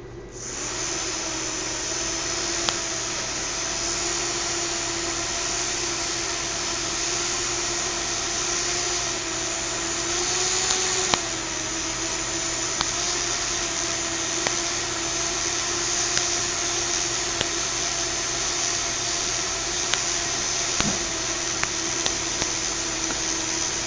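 Small electric motors of a fischertechnik model monorail running, spinning its wheels and two propellers with a steady whine and whir, starting about half a second in. The pitch lifts slightly about ten seconds in, then settles. The motors are running against resistance that the owner puts down to misaligned running gear.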